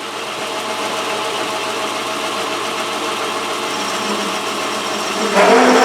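Metal lathe running steadily. Near the end a parting (cut-off) tool bites into a steel shaft with a loud, rough chatter and a high squeal. The chatter comes from too much chuck overhang on the spindle.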